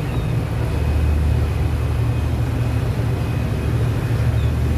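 Steady low engine rumble that holds level without change, with a faint thin steady tone above it.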